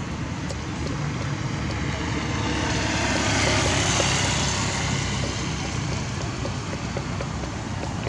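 Road traffic noise: a steady low rumble with one vehicle passing, growing louder to a peak near the middle and then fading.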